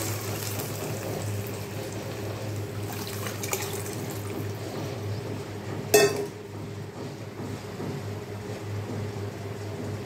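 Thin tamarind-tomato-spice liquid pouring from a vessel into a hot kadai of fried onions, splashing and running steadily. About six seconds in there is one sharp click, the loudest sound, and after it only a quieter steady hiss and low hum.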